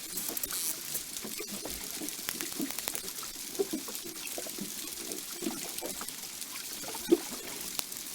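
Dusky dolphins underwater, recorded through a hydrophone: a rapid scatter of clicks and short buzzy burst pulses over a steady sea hiss. The pulses come every fraction of a second, with the strongest about seven seconds in.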